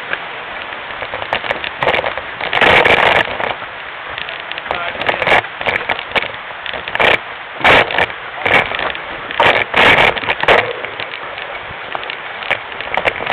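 Mountain bike ridden fast down a rough forest trail, heard from a camera clamped to the bike: a steady rushing of tyre and wind noise, broken by loud rattling knocks as the bike jolts over bumps, several in quick succession in the middle.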